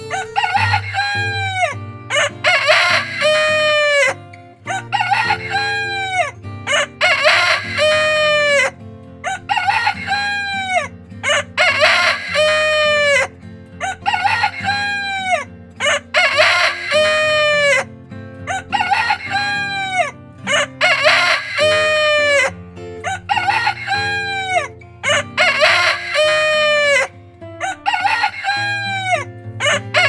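Roosters crowing again and again, one crow after another every second or two, each call dropping in pitch at its end.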